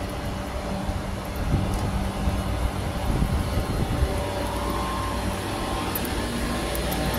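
A steady low mechanical hum in busy outdoor ambience, with irregular low rumbling on the microphone from about a second and a half to four seconds in.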